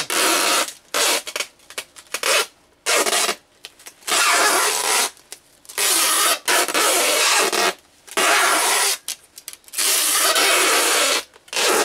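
Clear strapping tape pulled off a handheld tape-gun dispenser and wound over stretch wrap, a loud rasping screech in about six long pulls of a second or two each, with short gaps between.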